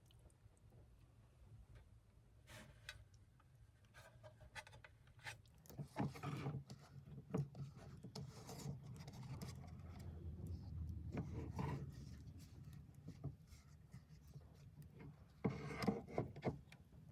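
Soft rubbing and scattered small taps and knocks of hand food preparation as tortillas are dipped in sauce, filled and rolled. Short, slightly louder stretches of handling come about six, eleven and sixteen seconds in.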